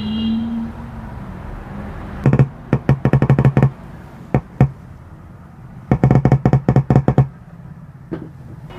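Two Ahuja 12-inch 200-watt drivers in a speaker box crackling and popping as a battery is tapped across the terminals, in two bursts of rapid pops about a second and a half long, about two seconds and six seconds in, with a few single pops between. This is a DC battery test of the wiring and plus-minus polarity, which checks out OK.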